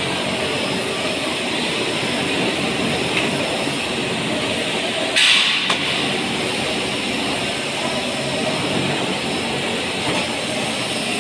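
Steady rumbling background noise of a large building under construction, with a brief, loud, hissing scrape about five seconds in as metal ceiling channels are handled.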